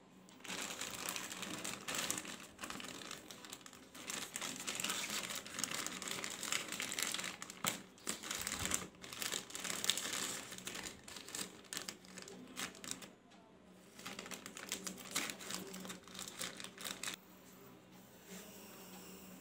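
A plastic courier mailer and the wrapping inside it crinkling and crackling in irregular bursts as they are torn open and handled, dying down near the end.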